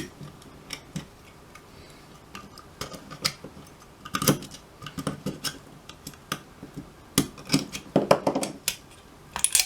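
Irregular metallic clicks and clinks as a tool pries a thin steel cover off its metal retaining clips, with bunches of clicks about four seconds in and again near the end.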